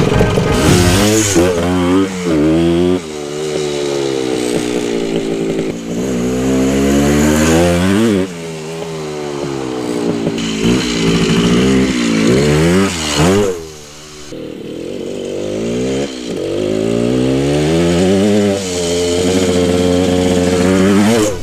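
1974 Honda MT250 Elsinore's two-stroke single-cylinder engine under way, revving up through the gears: its pitch climbs and then drops sharply at each shift, about half a dozen times, with a deeper dip about two-thirds of the way through.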